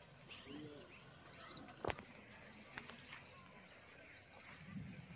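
Faint outdoor ambience with small birds chirping and twittering, a sharp click just under two seconds in, and a low rumble building near the end.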